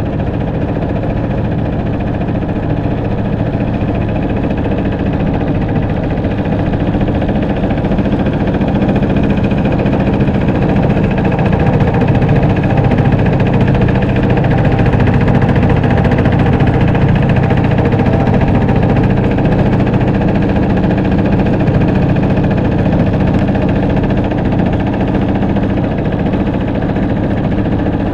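Small boat's motor running steadily under way, with a little rise in loudness midway.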